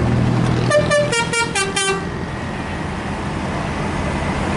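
A bus's Basuri 'telolet' multi-tone musical horn playing a quick tune of about six short notes that step down in pitch, over the steady hum of engines and road noise.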